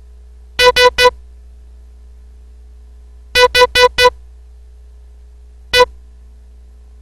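Morse code sent as short electronic beeps, all dits: three dits, a pause, four dits, a pause, then a single dit. That spells S, H, E, the word "SHE" in dot-group letters for the listener to decode.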